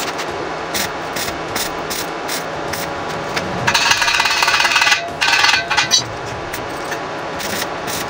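Metalwork on a steel tank during arc welding of its steel legs: a run of sharp metal knocks and taps, then a dense, harsh crackle a little past the middle, with a few more knocks near the end.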